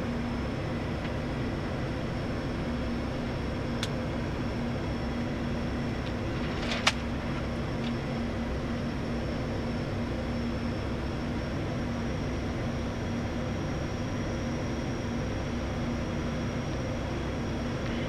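Steady cockpit drone of a turboprop airliner on final approach: engine and propeller noise with air rushing past, under a constant low hum tone. A small click comes about four seconds in and a sharper click about seven seconds in.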